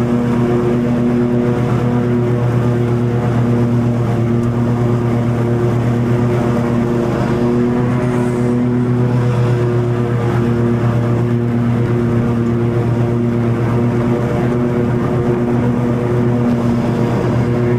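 Toro TimeCutter 50-inch zero-turn mower running steadily while cutting long grass, its engine giving an even, loud hum.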